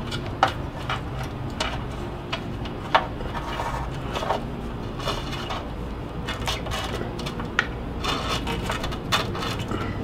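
Scattered clicks, taps and rustles of hands working a car's wiring harness and grommet, over a steady low hum.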